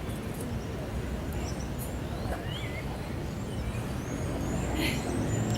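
Outdoor ambience: a steady low rumble of distant traffic, with birds chirping now and then.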